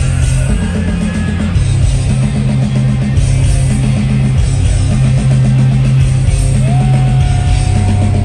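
Live rock band playing at full volume: distorted electric guitars, bass and drums in an instrumental passage. Near the end a single note slides up and is held.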